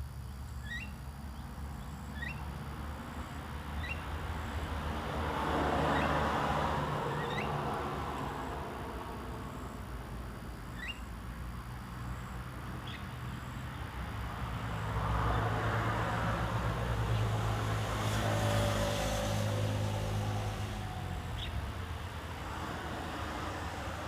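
Short rising chirps from caged bulbuls: several in the first few seconds, then single ones now and then. Two vehicles pass by, each swelling up and fading away, about six seconds in and again around fifteen to twenty seconds in; these are the loudest sounds.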